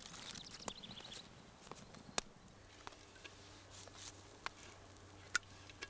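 Piki batter being smoothed by hand across a hot piki stone: faint, scattered ticks and crackles over a light hiss. A short run of high chirps comes about a second in.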